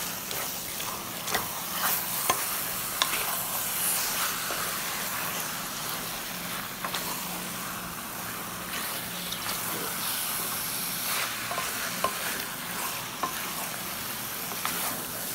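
Raw chicken pieces sizzling in hot oil and onion-tomato masala in a steel pressure cooker as a spatula stirs them, with scattered clicks and scrapes of the spatula against the pot.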